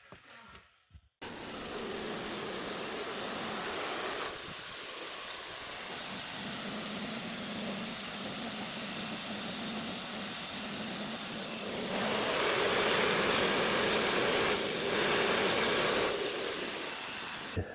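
Pressure washer spraying: a steady hiss of the high-pressure water jet. It starts suddenly about a second in, grows louder about twelve seconds in and cuts off just before the end.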